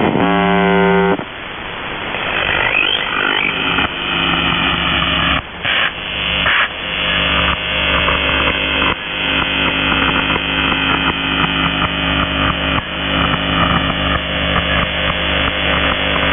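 Shortwave reception of the Russian military station UVB-76 "The Buzzer" on 4625 kHz: a harsh buzz tone lasting about a second, then a steady mix of static and interfering signals over steady low hums, with a rising whistle near three seconds and a few short bursts a little later.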